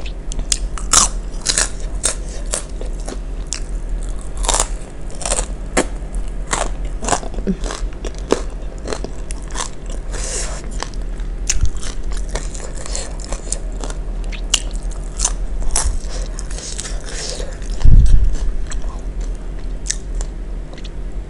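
Close-miked crunching and chewing of crispy kerupuk crackers from a plate of asinan sayur in peanut sauce: a long run of sharp, irregular crunches. One dull thump near the end is the loudest sound.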